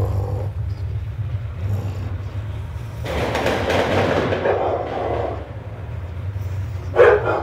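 Three-month-old bulldog puppy snoring in her sleep: rasping snores with each breath, one long drawn-out snore in the middle, over a steady low hum. A short loud sound comes near the end.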